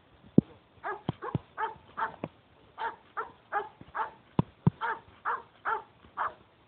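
A squad dog barking in a steady run, two or three barks a second, beginning about a second in. A few sharp knocks fall among the barks, the loudest just before the barking starts.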